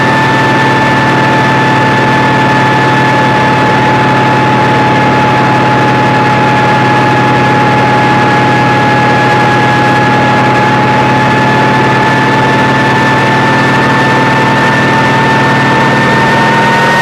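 Kamov Ka-26 helicopter running steadily under its twin radial piston engines and coaxial rotors, loud and unbroken, with a high whine over the engine drone that rises slightly in pitch near the end.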